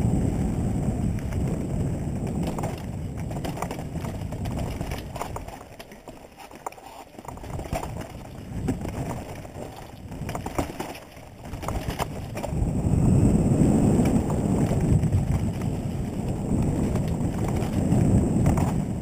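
Wind rushing over the camera microphone as a mountain bike rides a dirt trail, with clattering and ticking from the bike over rough ground. The rushing drops away around six to seven seconds in and briefly again near eleven seconds, then builds again.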